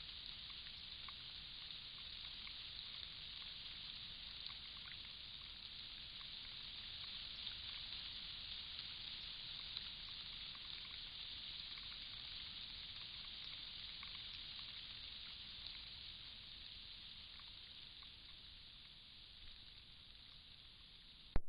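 Steady high hiss over a low rumble, with faint scattered ticks, ending in one sharp click just before the end.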